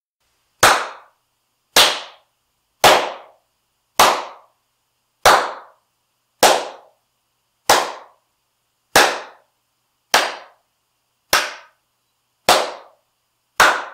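A person clapping their hands twelve times at a steady pace, about one clap every second, each a sharp single clap with a short room echo fading after it.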